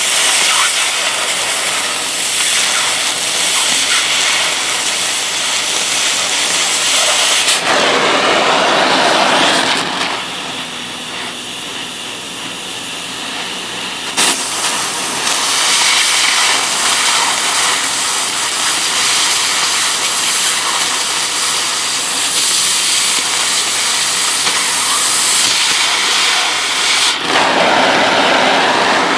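Oxy-fuel cutting torch flame hissing steadily while cutting through steel rail. The hiss grows louder for a couple of seconds and then eases, and there is one sharp click about midway.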